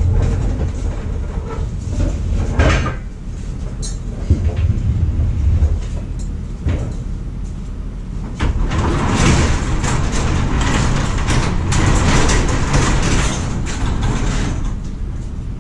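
DIY steel gantry crane rolling on its casters across a concrete garage floor, a low rumble with a few clunks. From about nine seconds in, a longer rattling, scraping noise takes over for several seconds.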